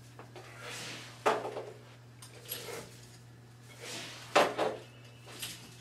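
Breathing and movement sounds of a man doing lunges with a resistance band around his ankles: two sharp, louder sounds about three seconds apart, about a second in and just past four seconds, with softer breaths between them. A steady low hum runs underneath.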